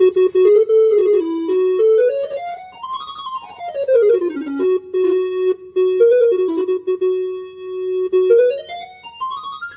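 Casio CTK-2550 portable keyboard played one note at a time, demonstrating one of its built-in tones. It plays quick runs up and down the scale, holds a long steady note from about halfway, then climbs again in a rising run near the end.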